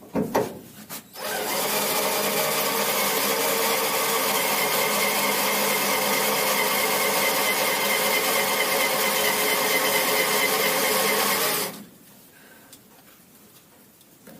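Electric drill running at a steady speed for about ten seconds, most likely drilling out a rusted door-lock screw, then stopping abruptly. A few sharp knocks come just before it starts.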